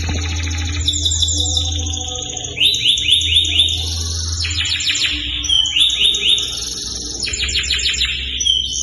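Large-breed domestic canary singing continuously: a varied run of rapid trills and rolling repeated-note phrases, switching to a new phrase every second or so. A low steady hum runs underneath.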